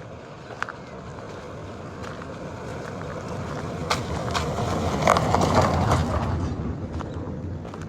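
A road vehicle passing close by: its rumbling noise swells to a peak about five to six seconds in and then fades away, with a few sharp clicks along the way.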